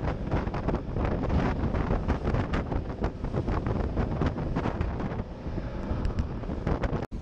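Wind buffeting the microphone on a boat running across open water, with the hull slapping irregularly through the chop. The sound breaks off abruptly for a moment near the end.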